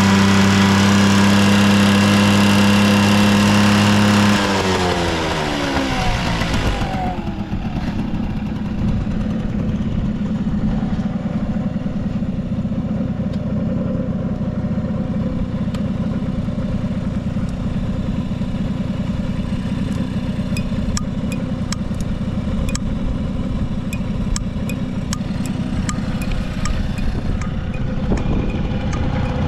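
Vintage Honda Squash AB11 50cc two-stroke scooter engine held at raised revs, then the throttle is let off about four seconds in and the revs fall away smoothly to a steady idle. It runs quietly with no abnormal engine noise.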